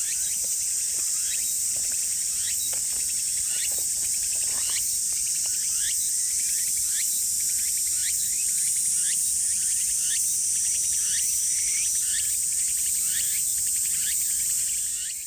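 Loud, steady high-pitched drone of insects, with a short rising chirp repeating a little less than twice a second.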